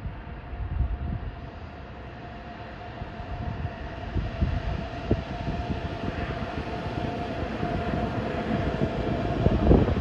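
DB class 101 electric locomotive and its Intercity coaches approaching and passing at speed. A steady whine grows louder as the train nears, and wheels knock over the rails loudly just before the end as the locomotive goes by.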